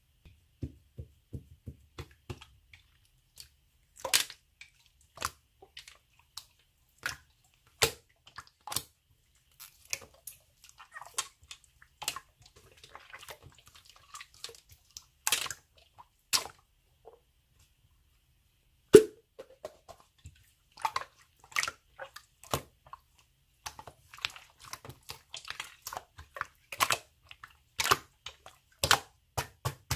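Slime being squished and worked by hand: irregular sharp sticky clicks and pops with quieter squishing between, and one louder pop about two-thirds of the way through.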